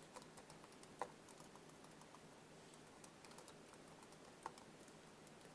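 Faint typing on a computer keyboard: a scattered run of light key clicks, with two louder keystrokes, one about a second in and one near the end.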